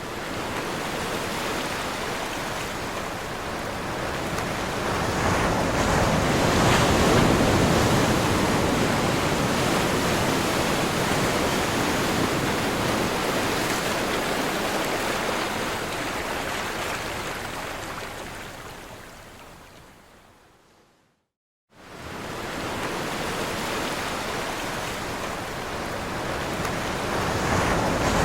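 Ocean waves breaking on a shore, a rushing surf that swells up, holds, and slowly ebbs away. About three quarters of the way through it drops out to silence for a second, then the surf starts again and builds.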